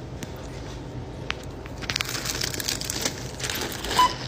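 Foil snack bag of tortilla chips crinkling as it is handled, with crackles thickening about halfway through. A short beep, typical of a checkout barcode scanner reading an item, sounds near the end.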